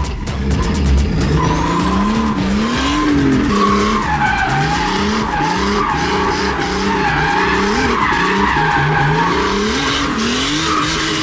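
Turbocharged drift car engine heard from inside the cabin, revving up and dropping again and again, about once a second, while the tyres squeal through a drift.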